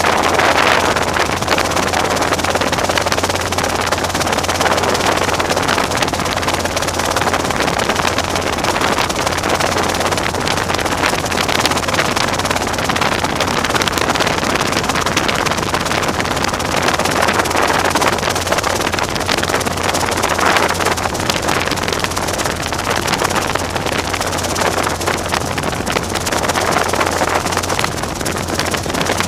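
Robinson R22 helicopter running, a steady loud drone of engine and rotors with rushing wind noise, heard from inside the cabin.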